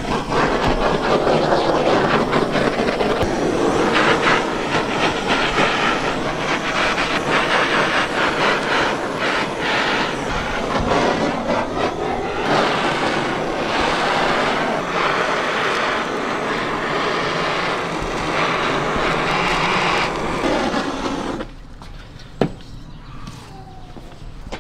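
Handheld butane gas torch burning with a steady loud roar as its flame is played over a hanging lamb carcass. It cuts off about three seconds before the end, followed by a single sharp click.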